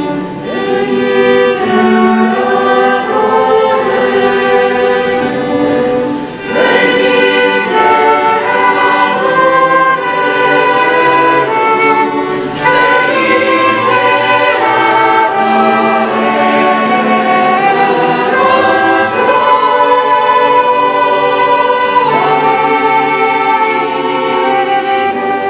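Mixed polyphonic choir singing a sacred piece in held, changing chords, with a flute accompanying.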